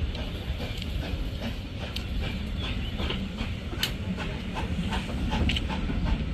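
A train running on the rails: a steady low rumble with scattered clicks and rattles.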